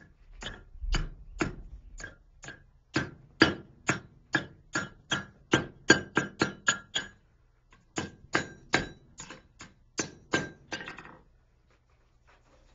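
Blacksmith's hand hammer striking a steel fishing gig on an anvil, shaping its barbed prongs. About thirty ringing blows come at about two a second, quickening to three or four a second. There is a short pause about seven seconds in, then a second run that stops over a second before the end.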